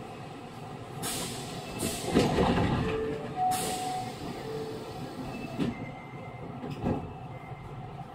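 Onboard running sound of an Osaka Metro 66 series electric commuter train: a steady rumble of the moving car, with two short hissing bursts about one second and three and a half seconds in.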